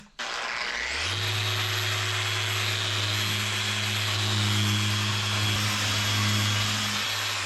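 Electric power sander starting up, rising to full speed about a second in, then running steadily as it sands wood off a pencil-marked bevel; it begins to wind down at the very end.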